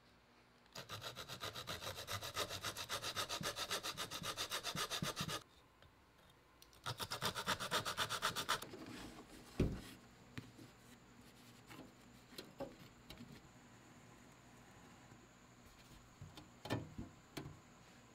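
Small hacksaw cutting through a thin wooden strip with quick back-and-forth strokes, in two bouts: about four and a half seconds, a short pause, then under two seconds more. After that, a few light knocks of wood being set down on a desk mat, the loudest about a second after the sawing stops.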